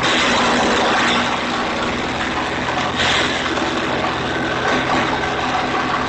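Small engine-driven garden wood chipper running steadily while conifer branches are fed in. A louder chipping noise surges over the engine at the start and again about three seconds in.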